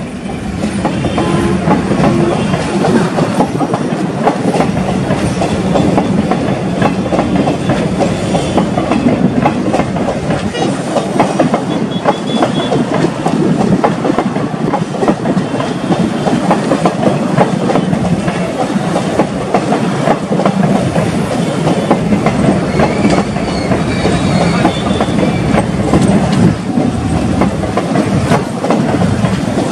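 Passenger train coaches rolling steadily past close by, their wheels clattering continuously over the track.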